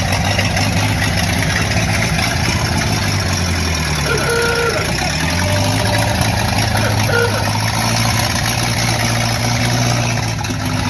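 1927 Ford Model T's four-cylinder engine running steadily just after being cranked into life, its pitch dipping about four seconds in and then picking up again.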